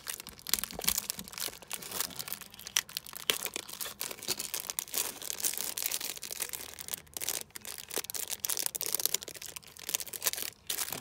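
Clear plastic packaging bag crinkling and crackling as fingers pick at it and pull it open, in a run of quick irregular crackles.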